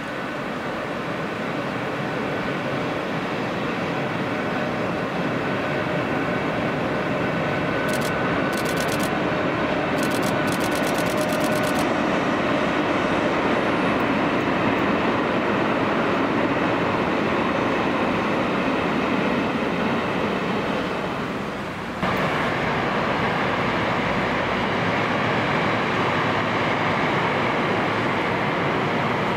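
A train running by, a steady rumble that builds over the first few seconds, with a quick run of sharp clicks about eight to twelve seconds in. The sound drops away and cuts back in abruptly about 22 seconds in, then carries on at a similar level.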